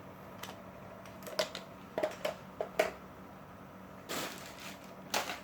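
Scattered light clicks and knocks of small tools and objects being handled while searching for a screwdriver, followed by two short rustling scrapes about four and five seconds in.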